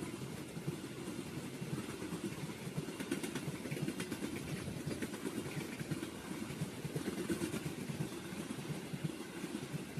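KA Mataram passenger coaches running past at speed close by: a steady rumble of wheels on the rails.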